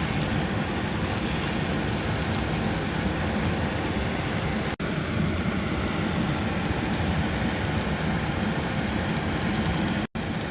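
A pan of palak paneer cooking on the stove, a steady sizzling hiss with crackle. The sound cuts out for an instant twice, about five seconds in and near the end.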